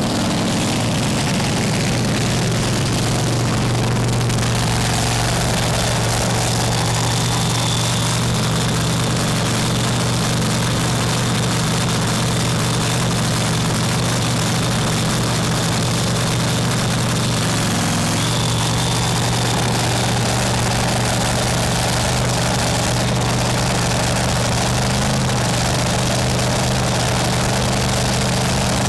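Supercharged V8 of a top alcohol dragster idling steadily, with a brief dip in pitch about two-thirds through.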